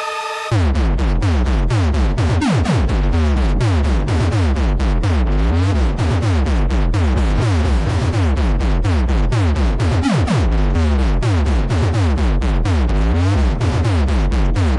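Bass-boosted electronic dance music for a sound check. A held synth chord gives way about half a second in to heavy pulsing sub-bass, sharp beats and repeated falling synth sweeps.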